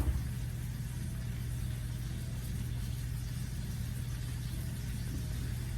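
A steady low hum, with faint sizzling from a burger patty frying in a skillet.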